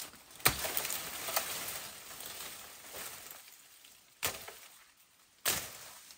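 Blade chopping at bamboo stems: three sharp strikes, the loudest about half a second in and two more near the end, with bamboo leaves rustling in between.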